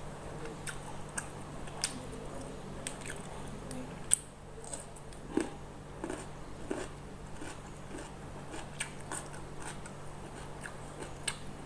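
Close-miked eating: wet chewing and biting with many small mouth clicks and occasional crunches, the sharpest about four seconds in. A steady low hum runs underneath.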